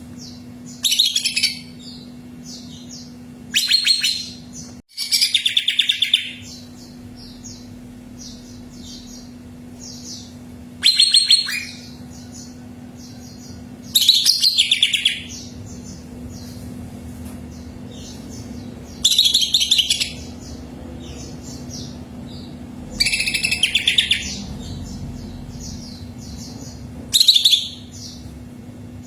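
Cucak ijo (green leafbird) song: loud, rapid stuttering phrases about a second long, repeated every few seconds, with softer high chirps between them.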